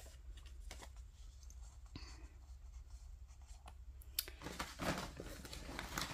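Faint paper handling: a torn scrap of paper rustling and being laid down onto a paper card, with light clicks and taps, one sharper click a little after four seconds in followed by a short rustle.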